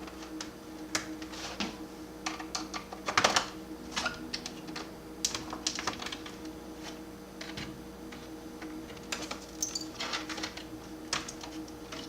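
Irregular plastic clicks and snaps of a laptop's keyboard deck being prised off its bottom cover by hand, its retaining clips popping loose one after another. The loudest snaps come a little over three seconds in.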